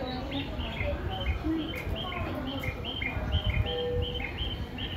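Electronic station chirping on the platform: short two-note calls, high then low, repeating about two to three times a second. Under it is the low rumble of an electric train pulling in.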